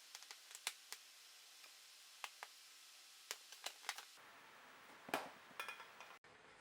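Faint, sharp metallic clicks and clinks, a dozen or so at irregular intervals, as steel drill bits are set into and snap against a magnetic holder; one louder clink with a brief ring about five seconds in.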